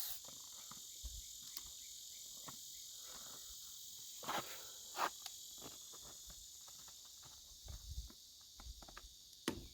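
Faint clicks and taps from a valve stem removal tool being handled on a tire's valve stem, a few seconds apart, over a steady high-pitched chorus of insects.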